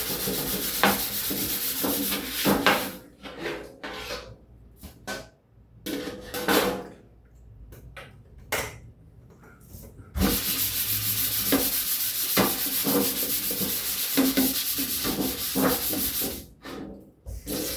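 Scrubbing a surface, in two long stretches of steady rubbing strokes. Between them come several seconds of scattered light knocks and handling noises.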